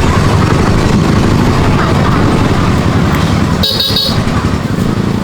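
Steady motor vehicle and traffic noise, with a short high-pitched horn toot a little under four seconds in.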